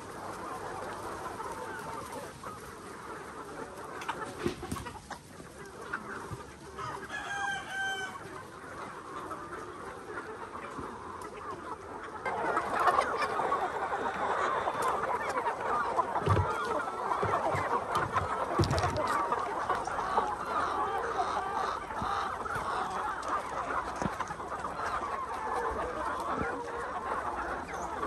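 A large flock of free-range chickens clucking as they crowd in to feed, with a rooster crowing once about seven seconds in. From about twelve seconds on the clucking is louder and denser.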